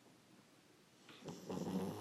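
A pug snoring: one loud snore that starts about a second in, swells for about a second and breaks off abruptly.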